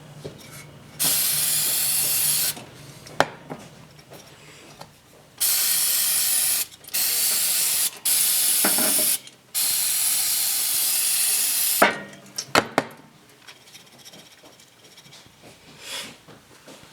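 Aerosol spray can hissing in five long bursts, each a second or two, with a few clicks and a short clatter of handling near the end.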